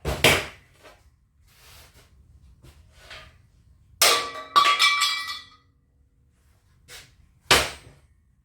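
Steel pieces knocking and clanking. A sharp knock at the start, then two knocks about four seconds in that ring on with a metallic tone for about a second, and another sharp knock near the end.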